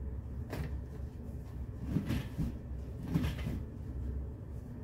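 A click, then two short bursts of rustling and knocking as a mattress is handled and pushed on a metal platform bed frame.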